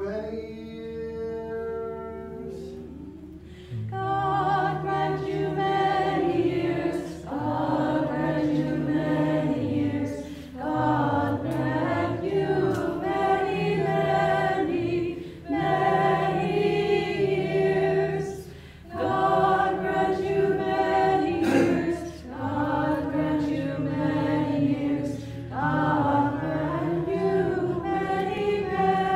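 A cappella choir singing an Orthodox church hymn in several voice parts, in phrases of about three to four seconds with short breaks between them. It starts quieter and grows fuller from about four seconds in.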